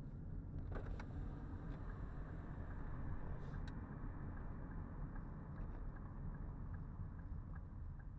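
Steady low rumble of a car driving, picked up inside the cabin by a dashcam, with a few faint clicks in the first two seconds.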